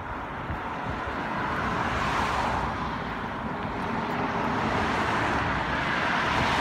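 Road traffic passing close by: a steady rush of tyre and engine noise that swells as cars go past, about two seconds in and again near the end.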